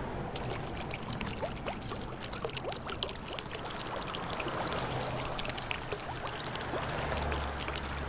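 Fountain water jets splashing into a pool: a steady patter of many small splashes and trickles, starting about a third of a second in.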